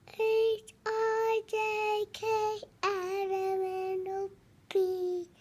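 A young child singing six notes, the tune stepping down to a long held note of about a second and a half, then one short, lower note.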